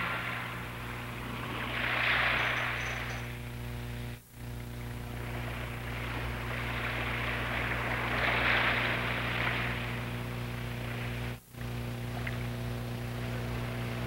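Sea waves washing in, heard as two slow swells of rushing noise about six seconds apart over a steady low hum, with the sound dropping out briefly twice.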